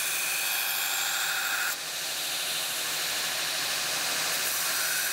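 Belt grinder running with a forged steel knife blade pressed to the belt, grinding it with a steady hiss before the blade is hardened. The grinding sound drops a little and shifts in pitch a little under two seconds in, then carries on.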